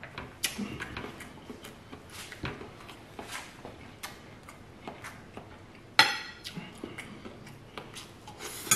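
A metal fork tapping and scraping on a ceramic plate as scrambled eggs are scooped up. There are irregular small clicks, and a sharper ringing clink about six seconds in.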